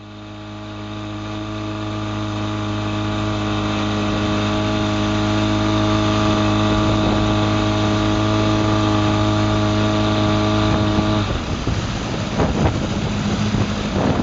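Mercury outboard motor running at a steady high speed under way, a constant hum fading in over the first few seconds. About eleven seconds in the steady tone gives way to a rougher, uneven rushing noise with a few thumps.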